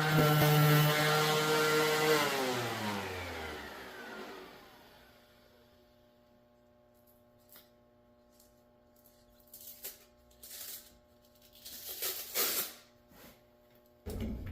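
Electric sander running at a steady pitch, then switched off, its whine falling as it spins down over a couple of seconds. A few light clicks and scrapes follow, with a short knock near the end.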